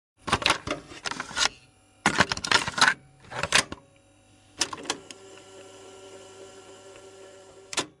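Typing on a keyboard: quick runs of sharp key clicks in four bursts over the first five seconds, followed by a faint steady hum and a single last click near the end.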